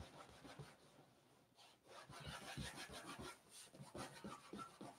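Faint, quick back-and-forth rubbing of a canvas burnishing cloth along the edge of a latigo-lined leather strap, burnishing the damp, saddle-soaped edge. The strokes come mostly from about two seconds in.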